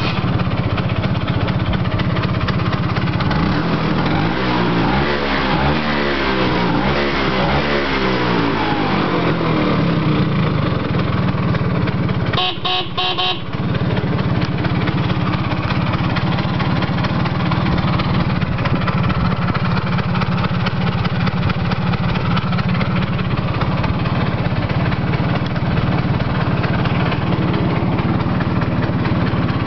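1980 Vespa P200's two-stroke single-cylinder engine running, revved up and down several times in its first ten seconds, then settling to a steady idle. A short horn beep sounds about twelve seconds in.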